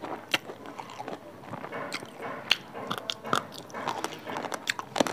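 Close-miked chewing of rice and spicy pork curry: irregular wet smacks and clicks of the mouth.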